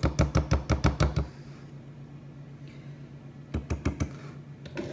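A mixing utensil knocking against a bowl of cupcake batter. A quick run of about eight sharp knocks comes first, then a few more about three and a half seconds in.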